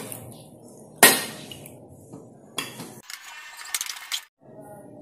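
Metal spatula scraping and clanking against a wok as cooked food is scooped out onto a plate, with one sharp clank about a second in and a smaller knock later.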